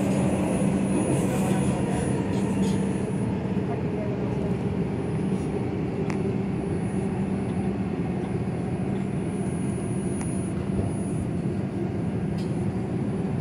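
R142 subway car running at speed, a steady rumble of wheels on rail with a constant low hum, heard from inside the car.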